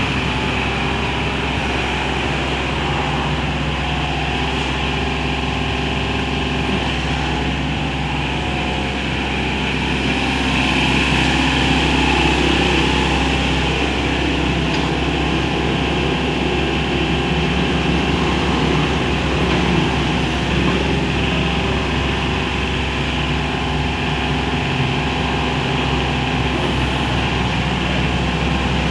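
Kubota KH60 compact excavator's diesel engine running steadily, rising a little in level for a couple of seconds about eleven seconds in.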